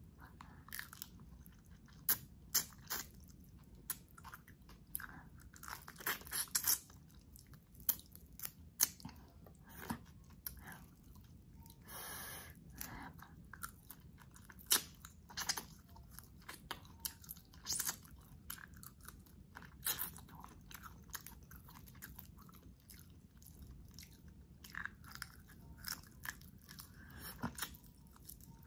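Close-miked eating of whole shell-on garlic butter shrimp: irregular crunches and wet clicks of biting and chewing through the shells.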